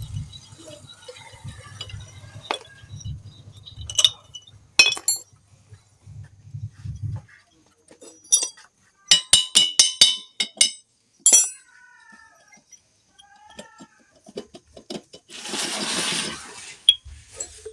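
Metal hand tools and engine parts clinking and clicking against each other in a string of sharp strikes, with a brief hiss near the end.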